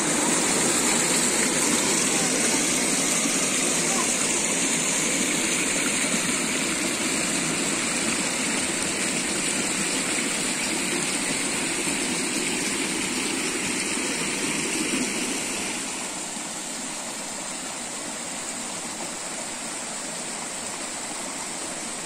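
Mountain river running over small rock cascades and pools: a steady rush of water, dropping a little in level about three-quarters of the way in.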